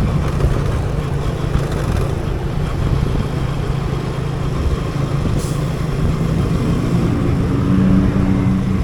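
Motorcycle engine running steadily while riding in city traffic, with a short hiss about five seconds in.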